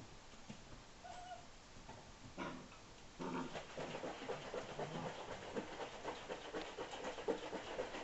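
Five-week-old German Shepherd puppies play-fighting: after a quieter start with a single short whine, from about three seconds in there is a busy run of short, high yips and little growls.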